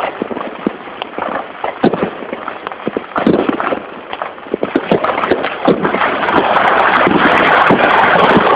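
Many fireworks and firecrackers going off at once: sharp bangs and pops at irregular intervals over a constant crackle, thickening into a dense, louder barrage of crackling from about five seconds in.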